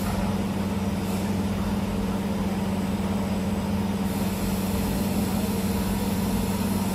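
CNC camless wire-forming machine running as it forms flat copper wire: a steady, even hum with a low drone and no distinct strokes or clicks.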